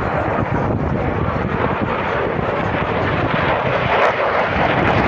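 Airplane engine noise: a loud, steady rushing that grows brighter about four seconds in.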